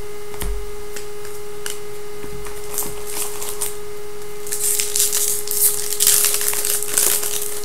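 Trading-card pack wrappers crinkling and tearing as packs are opened, loudest from about halfway through to near the end, with light clicks of cards being handled before it. A steady hum sounds underneath throughout.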